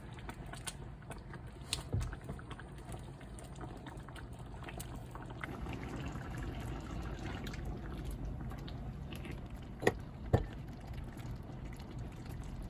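Liquid sloshing and bubbling in a pot of soup, with a few sharp knocks of utensils, two close together about ten seconds in.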